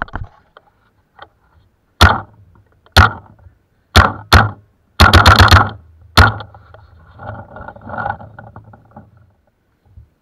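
Paintball marker firing at close range: single shots about a second apart, then a quick burst of several shots and one last shot, followed by faint scuffling.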